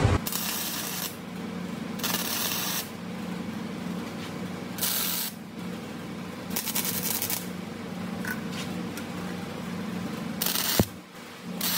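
MIG welder laying short welds on an intake manifold tube, heard as about five separate bursts of hiss, each under a second long, with a steady low hum between them.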